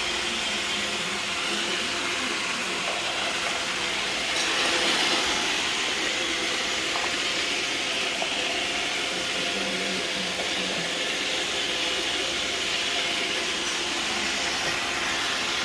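Roomba robot vacuum running: a steady whirring hiss with a faint motor hum, swelling slightly about four seconds in.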